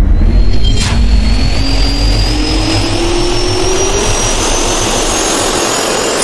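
Jet-engine spool-up sound effect: a loud roar over a deep rumble, with a whine climbing steadily in pitch, and a short swish about a second in.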